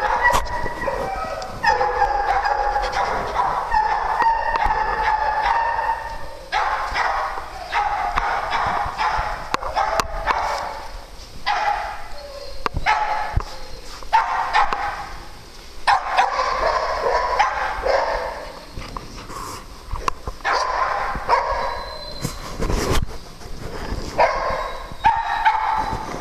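Dogs barking and yipping at play, some calls drawn out for a second or two and others coming in quick runs.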